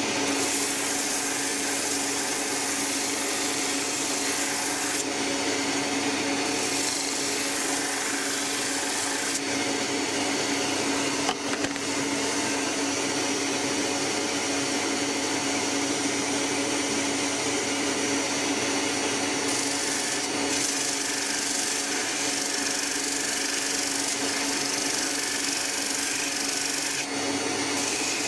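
Bench grinder motor running steadily while wooden knife-handle scales are pressed against the spinning wheel to square their sawn edges. The rasping grind of wood on the wheel comes and goes as the pieces touch and leave it, with a short knock about eleven seconds in.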